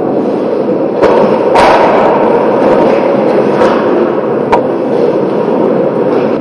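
Ice hockey play around the net: a steady scraping wash of skates on the ice, broken by sharp knocks of sticks and puck, the loudest about one and a half seconds in as a shot on goal is taken and saved.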